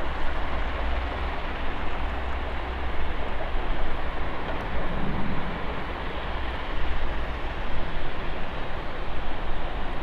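General Electric CF34 turbofan engines of an Embraer 190 airliner running, a steady rushing noise over a strong, uneven low rumble.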